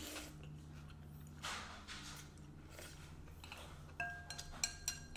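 Eating noodle soup: soft slurping sips from a spoon, then, about four seconds in, several sharp ringing clinks of a ceramic spoon against a porcelain bowl, over a low steady hum.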